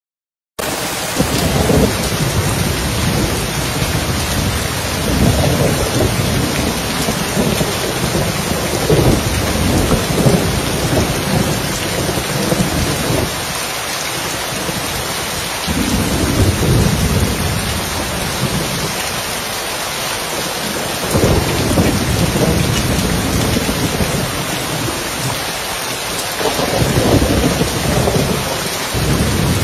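Steady rain falling on a roof with low rolling thunder that swells and fades again and again. The sound starts abruptly about half a second in.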